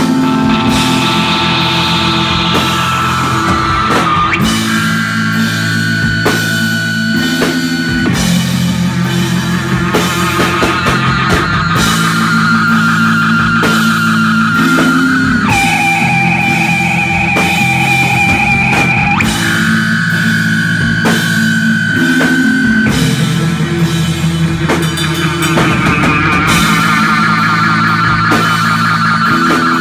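Live rock band playing electric guitars over a drum kit, with a lead guitar holding long high notes, some with a wavering vibrato.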